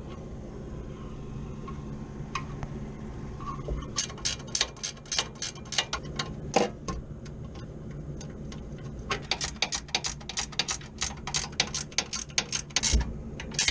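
Hand ratchet wrench clicking in two runs of quick strokes, about four clicks a second, over a steady low hum.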